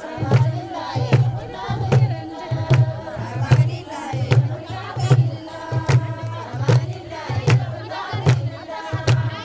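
A hand drum beating a steady rhythm, about two to three strokes a second, with sharp handclaps and a group of women chanting together.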